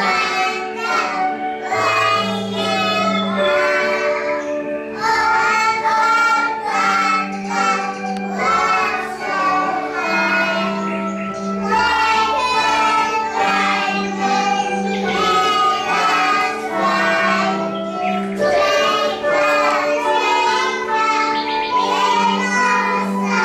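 A children's song: young voices singing over a backing track with a steady, repeating bass line.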